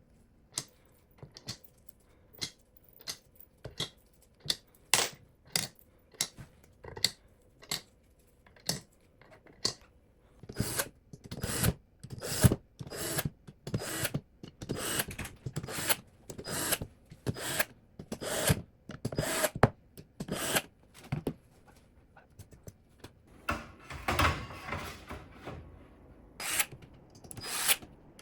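Computer parts and packaging being handled: a string of sharp separate clicks and taps, then from about ten seconds in, denser rubbing and scraping mixed with clicks.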